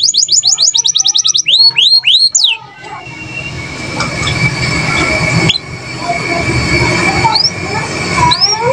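Domestic canary singing fast trills and high sweeping whistles for about two and a half seconds, then giving way to a dense noisy background with a low rumble, a thin steady high note and a few faint chirps, before trilling starts again near the end.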